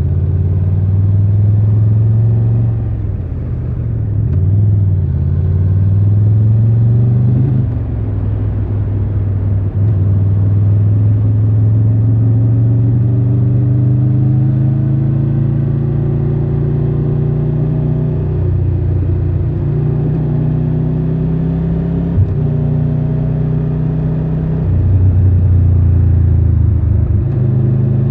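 Triumph Tiger 1200 Rally Pro's three-cylinder engine running while riding, its pitch rising slowly as it pulls and then dropping back at throttle and gear changes several times.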